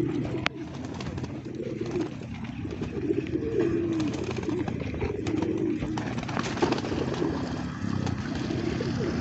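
Domestic pigeons cooing: repeated low, warbling coos over outdoor background noise, with one sharp click about half a second in.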